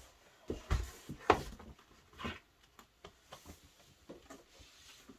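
A few knocks and clunks on the wooden bookcase as the support board under the shelf is handled, the sharpest about a second in, followed by fainter small clicks.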